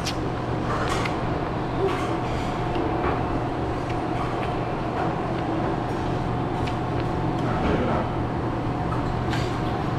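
Steady background drone of a roadside eatery with street traffic, a low hum and a steady whine running through it, and a few short light clicks of tableware.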